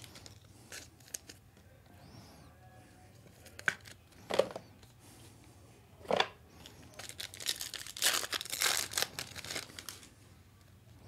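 Foil wrapper of a trading card pack being torn open and crinkled by hand. A few sharp crackles come in the first half, then a longer stretch of dense crinkling and tearing about seven to ten seconds in.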